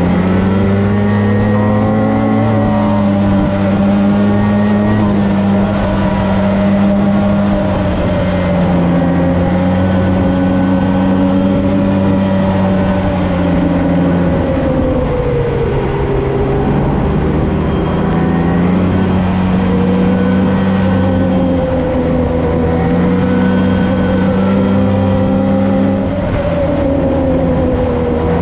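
Polaris snowmobile engine running steadily under way, its pitch dipping about halfway through and again near the end before climbing back.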